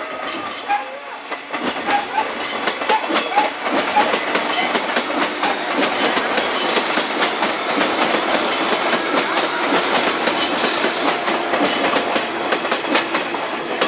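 Electric train running past, its wheels clattering rapidly over the rail joints.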